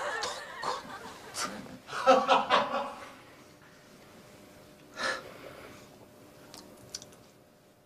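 Laughter and breathy chuckling in short bursts, a louder one about two seconds in and a brief one about five seconds in, with quiet in between.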